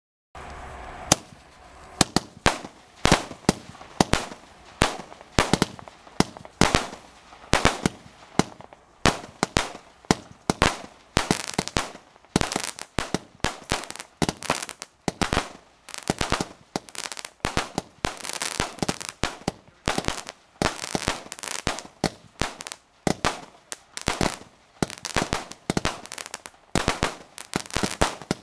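Weco Eagle Eye firework firing a long series of sharp bangs, roughly one to two a second, each with a short fading tail.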